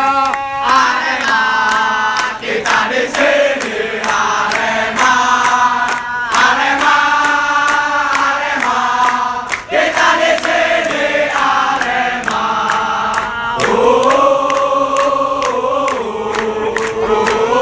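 Crowd of football supporters singing a chant together in unison, the tune moving in held notes, with sharp percussive hits throughout.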